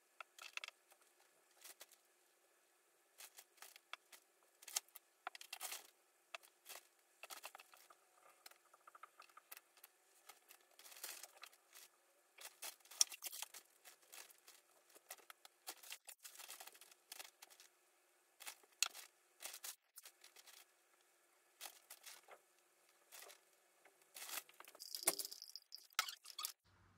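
Irregular crinkling and rustling handling noises, close and faint, with scattered sharp clicks and a denser flurry near the end.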